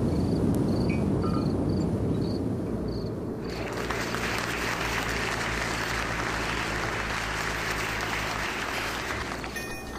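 Deep rumble of a rocket launch after a countdown, which cuts abruptly about three and a half seconds in to a crowd applauding, over a low hum; the applause stops shortly before the end.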